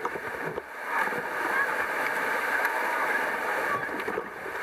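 Whitewater rapids rushing around an inflatable raft as the crew paddles through: a steady wash of water noise that swells up about a second in and holds.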